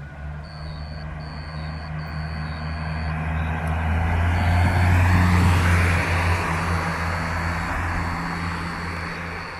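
A motor vehicle's engine and road noise: a steady low hum, with the noise building to a peak about halfway through and easing off again.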